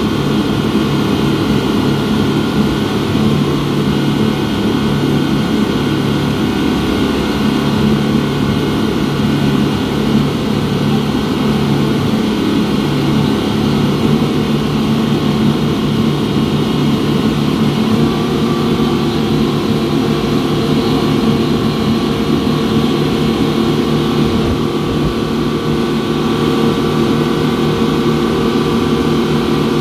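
Twin 250 hp outboard engines of a wooden speedboat running under way with a loud, steady drone. The engine note shifts slightly about eighteen seconds in.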